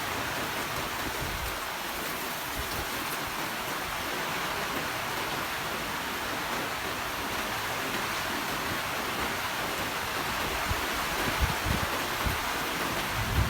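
Steady heavy rain falling, a dense even hiss. From about ten seconds in, uneven low gusts of wind buffet the microphone.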